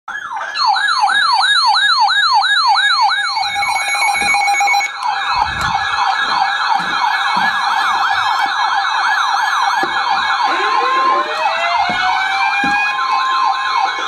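Electronic sirens yelping, a rapid up-and-down sweep about three or four times a second, several sirens overlapping. About ten seconds in, more sirens start up with rising wails over the yelp.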